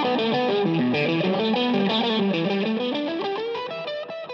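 Electric guitar music: a distorted, effects-laden guitar line of moving notes with some bends, starting to fade out near the end.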